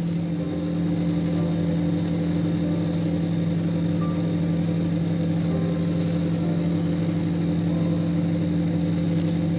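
Microwave oven running with a steady hum.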